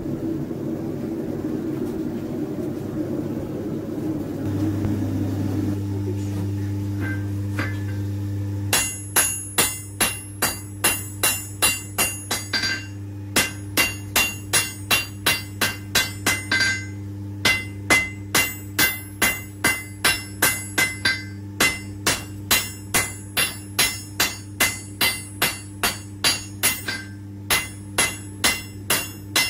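A forge running with a steady rush for roughly the first eight seconds, then a hand hammer striking a red-hot steel knife blade on an anvil, about two ringing blows a second with a few short pauses, drawing out the cutting edge.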